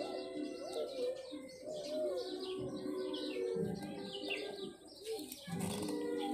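Many small birds chirping, short falling chirps several a second, over music playing underneath.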